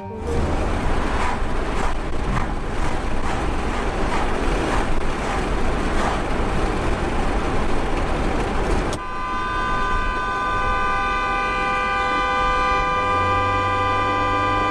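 Rough, even rushing noise of a vehicle driving in traffic. About nine seconds in it gives way to a vehicle horn held down in one long, steady blast.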